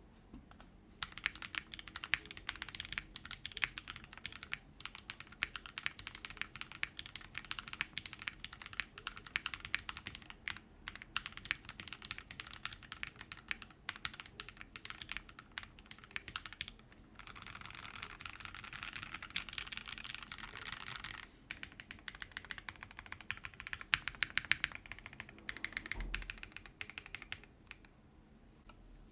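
Typing on a custom 60% mechanical keyboard, a WT60-D Weirdflex with lubed Raed switches on a PC plate in a resin case, fitted with Cherry-profile doubleshot PBT keycaps. Keystrokes come in quick continuous runs, densest for a few seconds past the middle, with a brief pause after that run.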